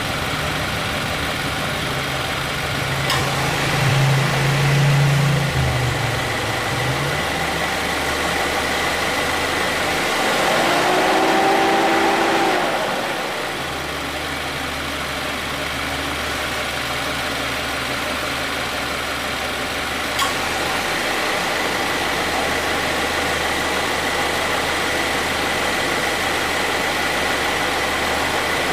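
2018 Subaru Forester's engine idling steadily with the air conditioning on. Clicks about three and twenty seconds in are the compressor's clutch engaging, which it does about four times a minute. The compressor starts without the abnormal noise it made before its repair.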